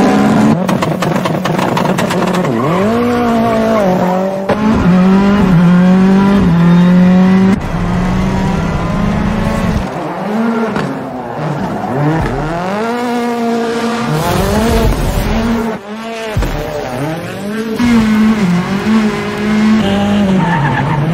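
Turbocharged rally car engine revved hard, its pitch climbing and dropping again and again through gear changes and throttle lifts, with tyre squeal as the car slides.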